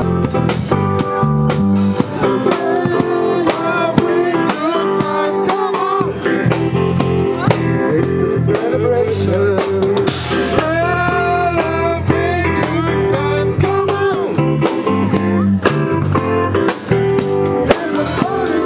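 Live band music: drum kit and keyboard playing a song, with a man singing into a microphone.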